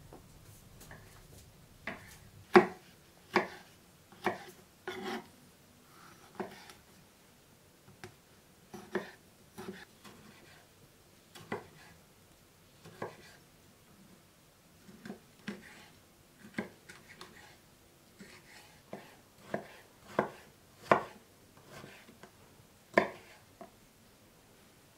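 Kitchen knife cutting tomatoes on a wooden cutting board: uneven knocks of the blade reaching the board, one every second or so, a few of them much louder.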